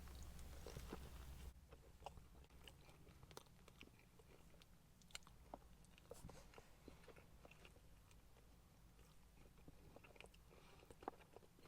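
Faint chewing of a mouthful of burger, with soft scattered mouth clicks and smacks over near silence.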